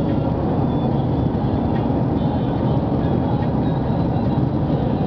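Steady road and engine noise inside a moving car's cabin: a constant low rumble with no breaks.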